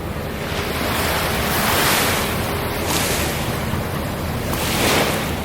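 Sea waves washing ashore, swelling twice, over a steady rumble of wind on the microphone.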